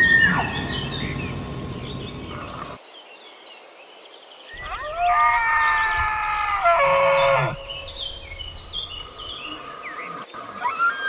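Bugling call of a stag deer: a high held whistle breaks off and drops in pitch at the start. About four and a half seconds in, a louder call rises, holds for about two and a half seconds and falls away. Faint high chirps are heard between the calls.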